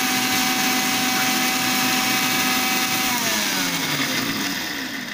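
Sumeet MI 1995 mixer grinder running at speed, grinding fennel seeds to powder in its tall jar. About three seconds in it is switched off and the motor's whine falls in pitch as it spins down.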